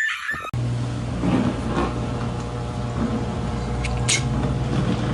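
A steady low mechanical hum with an even hiss, starting abruptly about half a second in, with a couple of faint clicks near four seconds.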